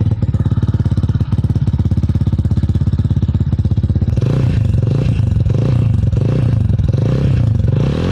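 Rusi Titan 250 motorcycle engine running through its stock muffler: a steady, evenly pulsing idle, then from about four seconds in the throttle is blipped several times, the engine note rising and falling.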